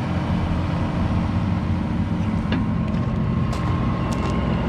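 Diesel engine of a Cat 304 mini excavator running steadily under operation, with a few light clicks or knocks over the second half.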